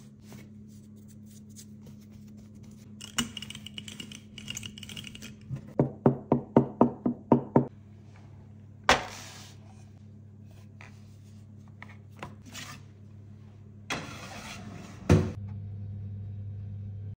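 Kitchen handling sounds over a steady low hum: a quick run of about eight even knocks around six seconds in, a single sharp knock a few seconds later, and two more knocks near the end, after which the hum grows louder.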